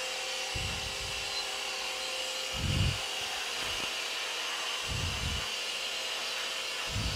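Cheap vacuum cleaner running with a steady whine and hiss. Its floor brush is pushed back and forth over the floor, and a low whoosh comes roughly every two seconds as it sweeps.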